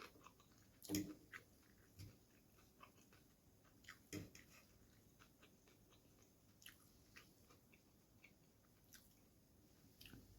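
Faint close-up chewing of chicken noodles: scattered soft wet clicks and smacks of the mouth, with two louder ones about a second in and around four seconds.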